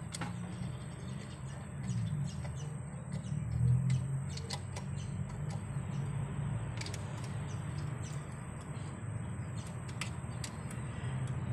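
Socket wrench on a long extension turning bolts on an open cylinder head: scattered light metallic clicks over a steady low rumble.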